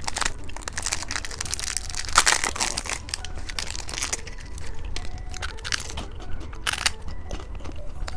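Plastic candy wrappers crinkling and crackling as they are handled, in irregular bursts.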